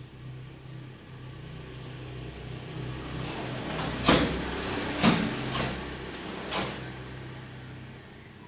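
Cotton karate gi snapping with fast strikes during a kata: five sharp, crisp snaps within about three and a half seconds, the two loudest a second apart, over a steady low hum.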